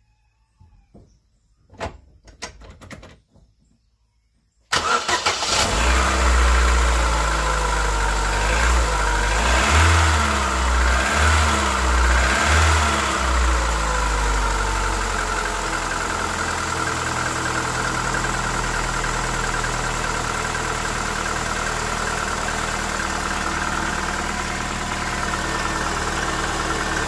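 A cold first start of a 2015 Chevrolet Onix's 1.4-litre four-cylinder flex-fuel engine, preceded by a few light knocks. It catches almost at once, its revs rise and fall for several seconds, then it settles into a steady idle. No knocking is heard, which the mechanic takes as a normal engine: the reported camshaft knock on first start does not show.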